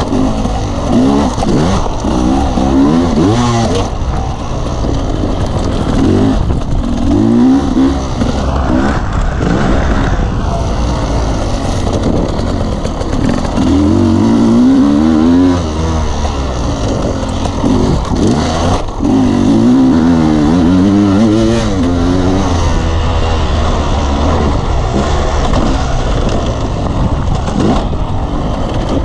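Off-road motorcycle engine revving up and down over and over as the rider accelerates and backs off along a rough dirt trail, with wind noise on the microphone.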